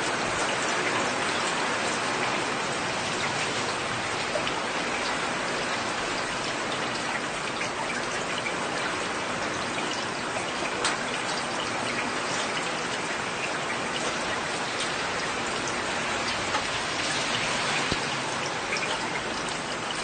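Heavy rain falling steadily: a dense, even hiss of rain with scattered sharper drop ticks.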